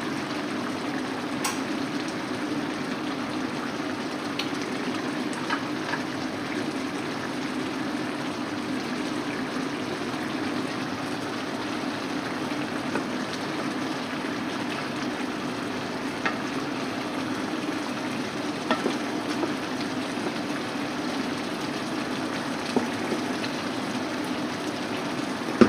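Chicken curry simmering in a pan: a steady bubbling hiss, with a few light knocks as a wooden spoon stirs it.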